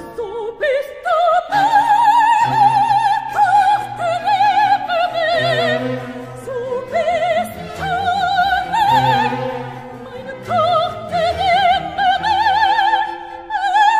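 Background music: operatic singing with orchestral accompaniment. A high voice with strong vibrato holds long, slowly moving notes.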